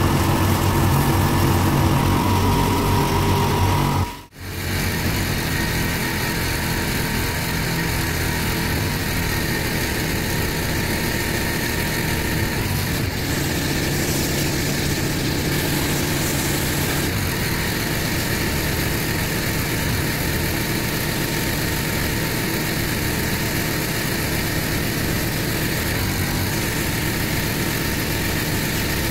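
Pressure washer running steadily, cleaning block paving first through a rotary surface cleaner and then through a lance spraying water onto the bricks. The sound drops out for a moment about four seconds in.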